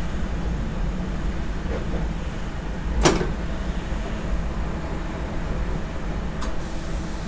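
Electric suburban train running along the track, heard from inside the driver's cab: a steady low rumble. A sharp click comes about three seconds in, and a fainter one near the end.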